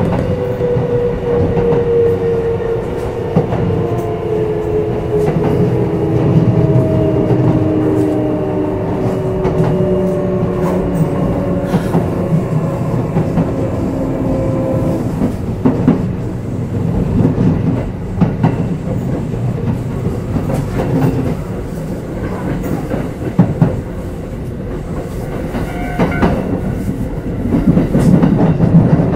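Running sound inside a Kintetsu 5211 series motor car (Mo 5212): several motor tones fall together in pitch over about the first fifteen seconds as the train slows. Under them runs a steady wheel-on-rail rumble with scattered clicks from rail joints.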